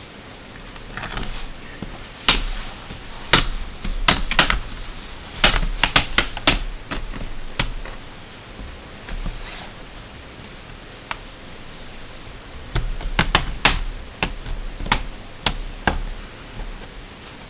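Sharp, irregular clicks and taps of small tools and hard plastic laptop parts being handled during a laptop teardown. They come in two clusters with quieter gaps between.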